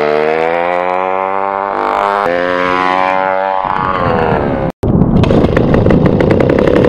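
Small gas engine of a motorized stand-up scooter running, its pitch wavering and slowly dropping. After a sudden cut about five seconds in, the scooter engine runs louder and rougher close by.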